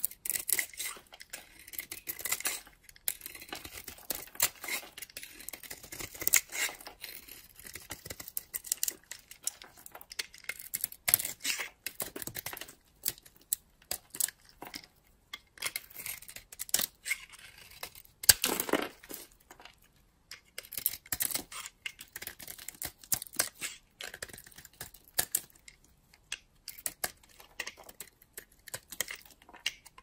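Dry bar soap being cut and scraped with a snap-off utility knife blade: irregular crisp, crunchy scraping strokes as slices and flakes come off, with one longer, heavier stroke about two-thirds of the way through.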